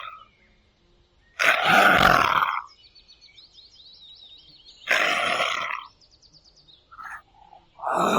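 A wild animal calling three times, each loud call lasting about a second, with faint high bird-like chirps in the background between the calls.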